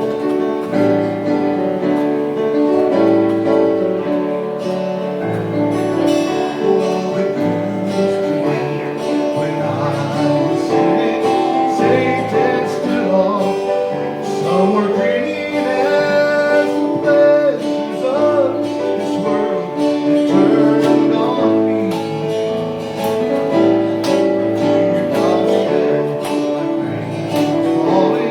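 A gospel song sung with guitar accompaniment.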